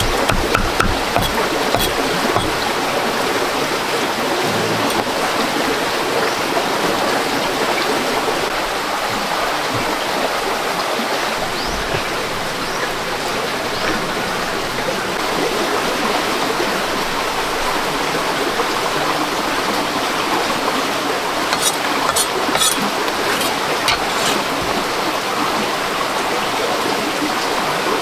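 Running water, a steady rush. A few light clicks come about three-quarters of the way through.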